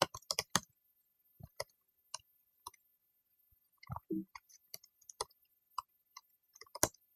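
Scattered computer keyboard keystrokes and mouse clicks, irregularly spaced with short silences between them, and a brief low sound about four seconds in.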